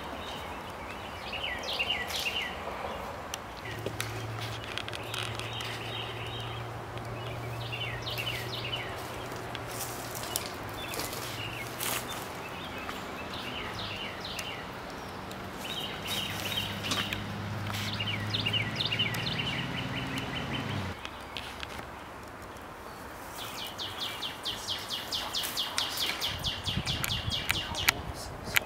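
Songbirds chirping and singing on and off, ending in a fast trill near the end. A steady low drone runs underneath through the middle and stops abruptly about two-thirds of the way through.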